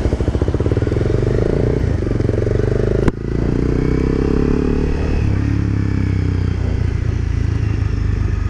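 Honda CBR300R's single-cylinder engine running steadily as the motorcycle is ridden through floodwater. There is a sharp click and an abrupt change in the sound about three seconds in.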